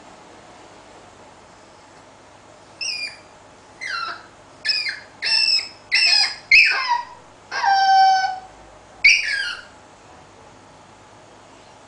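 Papillon puppy whining and yipping about eight times in a row: short, high-pitched cries that mostly fall in pitch, with one longer, lower whine near the middle. It is a crated puppy crying to be let out.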